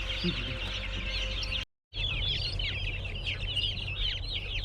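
A crowd of chickens chirping continuously, many short high peeps overlapping, over a low steady hum. The sound drops out completely for a moment about two seconds in.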